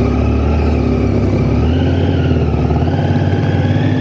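Triumph Tiger 800's three-cylinder engine running at road speed while riding, with a steady drone and road and wind noise; the engine note shifts slightly about halfway through.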